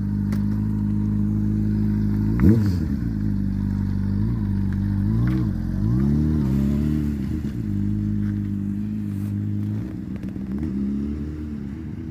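Honda CBR600RR's inline-four engine idling, blipped sharply about two and a half seconds in, then revved up and down several more times as the bike pulls away slowly.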